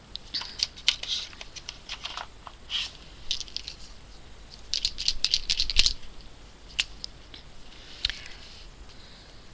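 Plastic Derwent Graphik marker pens being handled: a run of light clicks and clatters as pens and caps knock against each other and their plastic tray, with a denser cluster of rattles about five seconds in.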